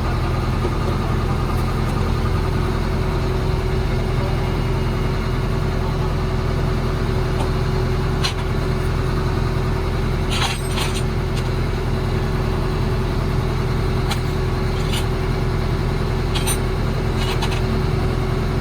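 An engine idling steadily, with a few short sharp clicks or taps over it in the second half.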